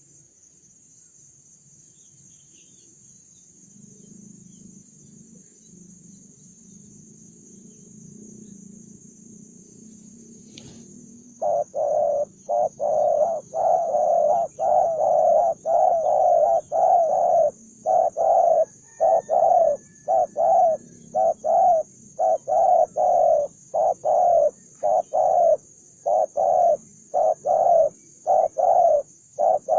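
Spotted dove cooing: after a quiet start, a fast run of loud, short coos begins about a third of the way in and carries on without pause. The bird is a combative wild-caught male.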